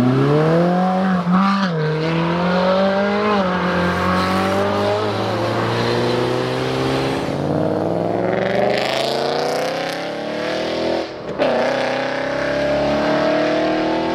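Sports cars accelerating hard away one after another, led by a Ferrari 458, their engine notes climbing through the gears with short dips at the shifts. A new engine note builds from about seven seconds in, breaks off briefly, and another starts rising.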